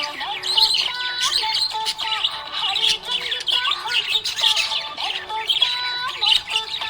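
Budgerigar chirping in quick, continuous chatter over a background tune.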